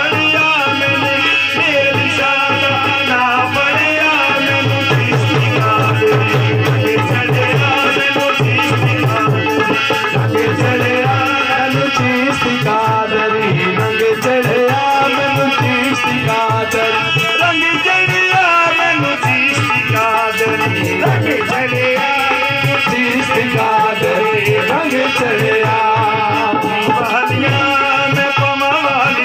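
Qawwali sung live: a lead male voice with the group singing along over harmonium, and a hand drum keeping a steady, driving beat.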